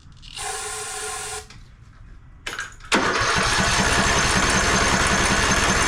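Briggs & Stratton 17.5 Intek single-cylinder mower engine turned over by its electric starter from about three seconds in, cranking steadily without catching: a no-start. A click comes just before the cranking, and a brief steady tone sounds for about a second near the start.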